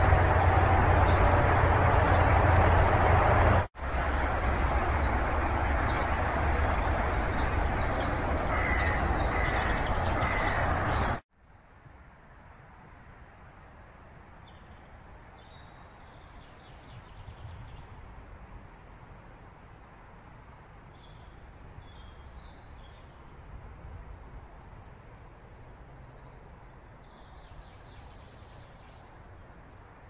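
Birds chirping and calling over a loud, steady rumble with a low hum. The rumble breaks off briefly at about four seconds and then stops abruptly after about eleven seconds. The rest is much quieter, with scattered faint bird calls.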